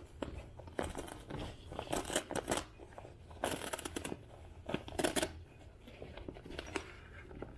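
Full paper vacuum cleaner bag crinkling and tearing in repeated bursts as a gloved hand rips it open and pulls out the packed dry soil and lint.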